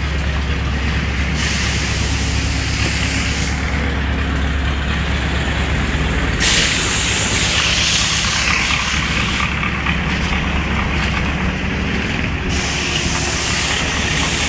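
Heavy diesel road-works machinery running steadily with a low hum, joined several times by a loud hiss that lasts a few seconds each time.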